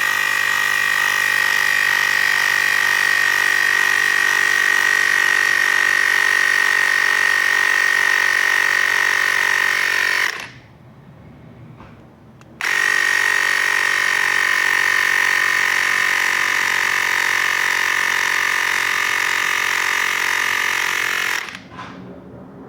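Cordless electric tire inflator pumping up a bicycle tube toward 45 PSI: a steady high-pitched motor and compressor whine. It stops for about two seconds partway through, runs again, and cuts off near the end.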